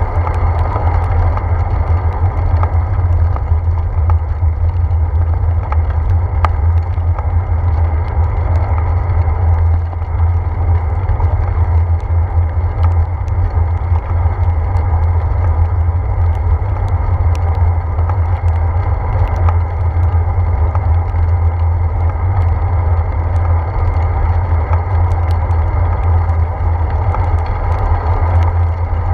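Steady low wind rumble and road noise from a bicycle riding on wet pavement in the rain, picked up by a handlebar-mounted GoPro, with scattered light ticks throughout.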